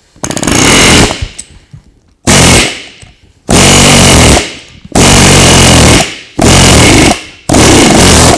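Snap-on pneumatic air hammer driving a flat chisel into a steel bolt clamped in a vise, cutting through it. The hammer runs in six loud bursts of rapid-fire blows, each about half a second to a second long, with short pauses between.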